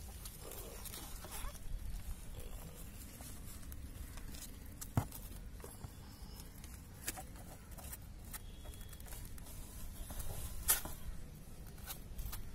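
Faint rustling and a few sharp clicks over a steady low rumble, from kittens nursing against their mother and a hand stroking the cat's fur.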